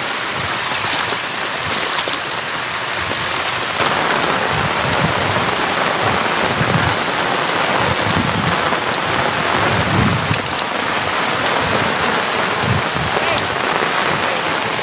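Heavy rain pouring down onto the ground, a dense steady hiss that grows louder about four seconds in, with occasional low rumbles.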